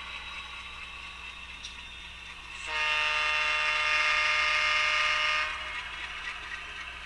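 HO-scale ALCO diesel locomotive's QSI Titan sound decoder playing one long air-horn blast of about three seconds, starting near the middle. Under it the decoder's ALCO 244 engine sound and the model's running gear rattle quietly.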